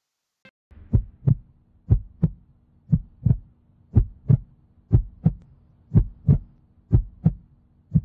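Heartbeat sound effect: paired low thumps, lub-dub, about one pair a second, over a faint steady low hum.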